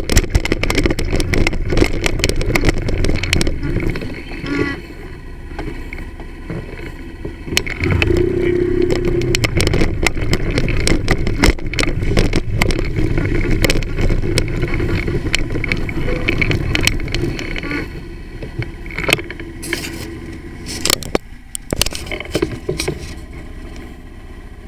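Moped engine running with wind and road rumble on the onboard microphone while riding, easing off for a few seconds early on and louder again, then quieter in the last few seconds as it slows, with scattered knocks from the bumpy surface.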